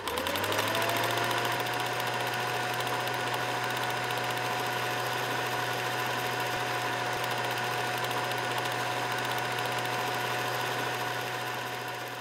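Film projector sound effect: a motor whirs up with a rising whine over the first second, then runs steadily with a fast, even rattle and a low hum, fading slightly near the end.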